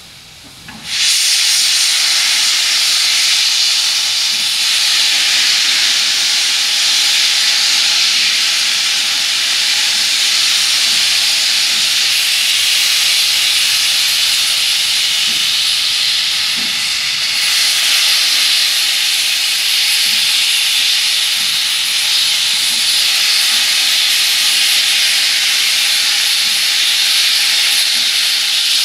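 Steam locomotive standing at the platform and blowing off steam: a loud, steady hiss that starts suddenly about a second in and keeps on without a break.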